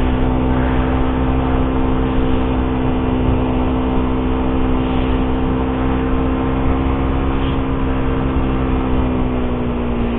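Suzuki GSX-R150's single-cylinder four-stroke engine running under way at a steady pitch, easing off slightly near the end.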